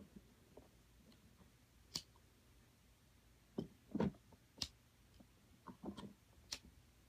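Scattered faint clicks and knocks of hand work with tools on the opened plastic housing and wiring of a Keurig 2.0 coffee maker, the loudest a knock about four seconds in.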